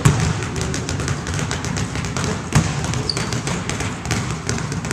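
Several basketballs dribbled at once on a hardwood gym floor: a quick, irregular run of overlapping bounces.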